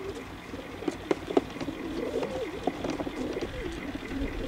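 Several racing pigeons cooing, their low warbling coos overlapping without a break. A few sharp clicks come about a second in.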